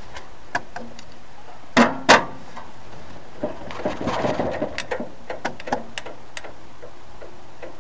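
Two loud knocks about two seconds in, then a run of lighter clicks and taps as parts of the lawn tractor are handled. The engine is not running.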